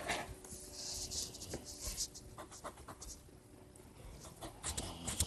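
Soft, irregular scratching of drawing strokes on paper, strongest about one to two seconds in.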